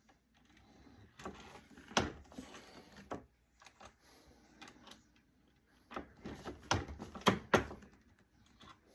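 Irregular clicks and knocks of small metal and plastic reloading tools being handled, while powder charges are measured and weighed. There is one loud knock about two seconds in, and a quick cluster of knocks near the end.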